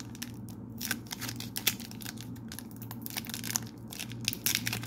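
Foil wrapper of an AEW Upper Deck Metal Universe trading card pack crinkling in a rapid, irregular string of sharp crackles as fingers work at its sealed top, a pack that is hard to open.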